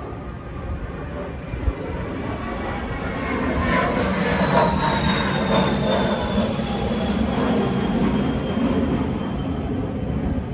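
Airplane passing overhead: a steady rumble that swells a few seconds in, with a thin high whine slowly falling in pitch.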